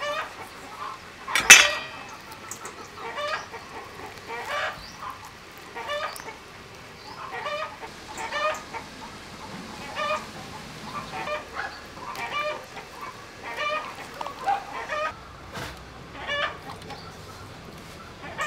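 Chickens clucking, a short call about every second, with one louder, sharper sound about a second and a half in.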